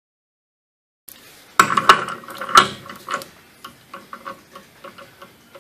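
After a second of silence, a few sharp metal clanks as a socket and inch-pound torque wrench go onto the pinion nut of a 9.25-inch rear differential. Then comes a steady run of light ratchet clicks, about three a second, as the wrench is worked on the nut to check the pinion bearing preload.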